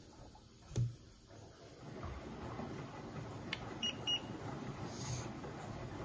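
Beko front-loading washing machine running a cold wash with its heater broken: a thump just before a second in, then the drum turning with water sloshing from about two seconds in. Two quick high beeps about four seconds in, from a handheld infrared thermometer.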